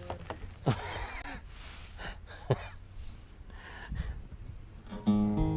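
A few short, breathy vocal sounds from a person, then an acoustic guitar chord is strummed about five seconds in and rings on. The strum is the loudest sound.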